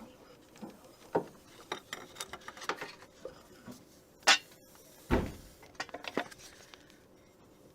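Irregular clinks and knocks of hand tools and metal engine parts being handled during engine strip-down. The sharpest click comes about four seconds in, and a duller, deeper knock follows about a second later.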